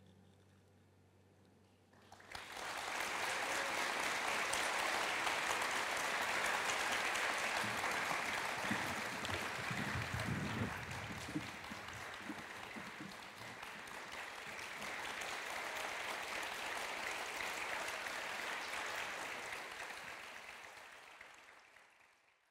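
Audience applause, breaking out about two seconds in as the last faint note dies away, holding steady and fading out near the end.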